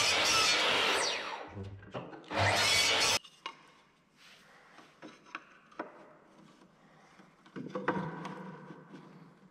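Sliding miter saw cutting oak boards for about the first three seconds, its motor winding down between two cuts before the sound stops abruptly. Then light wooden knocks and taps as oak slats are handled and fitted together, with a faint steady hum coming in near the end.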